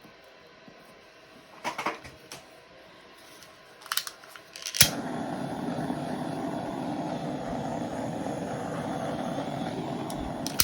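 Hairdryer switched on with a click about five seconds in, blowing steadily, then switched off with a click at the very end. A few light handling clicks come before it.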